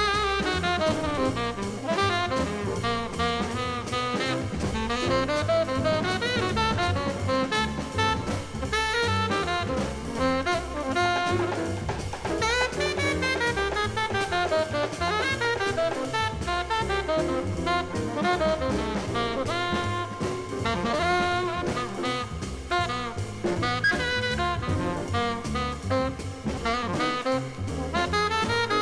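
Jazz record with saxophone lines over a drum kit keeping a steady beat.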